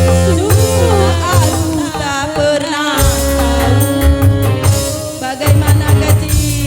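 Dangdut DJ remix music: a wavering, pitch-bending lead melody over a heavy bass beat. The beat thins out briefly and comes back in full about three seconds in.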